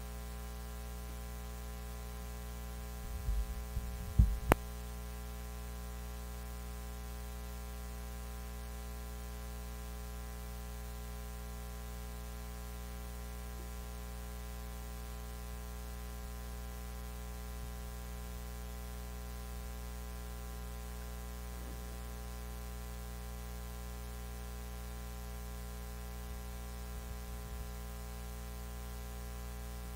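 Steady electrical mains hum with a stack of even overtones. About three to four and a half seconds in come a few low thumps and a sharp click.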